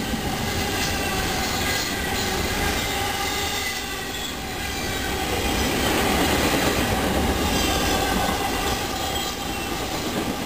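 Intermodal freight train's double-stack well cars rolling past close by: a steady rumble of steel wheels on rail, with a faint high steady squeal from the wheels.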